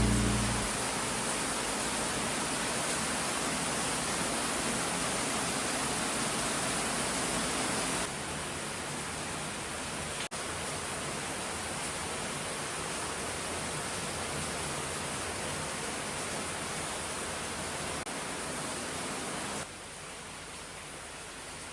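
Steady hiss of rain, even and unbroken. It steps down in level twice, at about 8 seconds and again near the end, with a brief dropout around 10 seconds.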